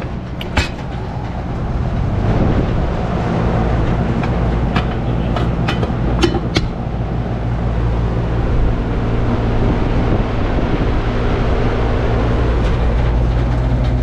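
Newly installed central air conditioner condensing unit starting up: the compressor and condenser fan come up over the first couple of seconds, then run with a steady hum and fan noise. A few sharp clicks about five to six seconds in.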